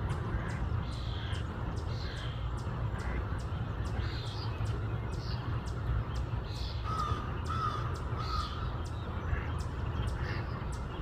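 Birds calling: a harsh, cawing call repeated roughly once a second, with sharp clicking sounds in between and three short clear notes about seven seconds in, over a steady low rumble.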